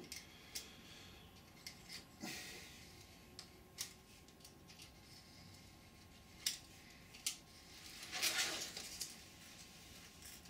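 Scattered light clicks and scrapes of a skewer working a moulded foam wing skin free of a 3D-printed ABS mould, with two longer rustling scrapes about two seconds in and near the end.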